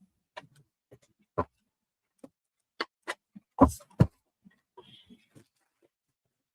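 Tarot cards being handled and laid on a table: scattered light taps and clicks at irregular intervals, with two louder knocks a little past halfway.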